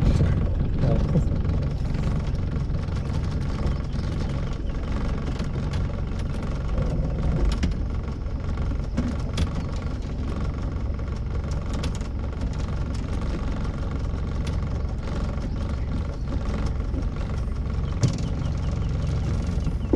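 Boat's gasoline engine running steadily, a low drone, as the boat is driven in circles under power.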